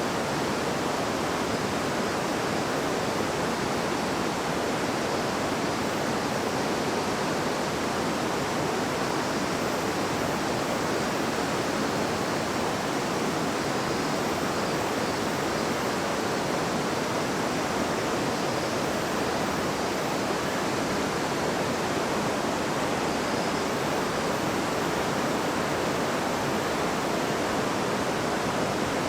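River water flowing and babbling over stones, a steady even rush with no change in level.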